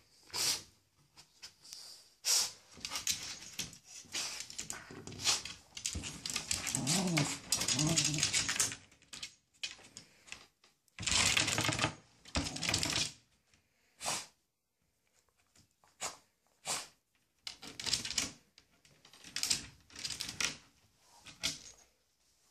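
Yorkshire terrier's claws scratching and tapping in quick bursts against a terrarium's glass front and metal vent strip, with a short whimper about a third of the way in.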